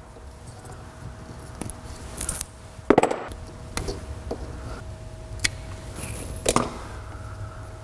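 Small sharp clicks and taps from hands and small tools handling wiring being spliced under a car. The loudest comes about three seconds in and another about six and a half seconds in, over a steady low hum.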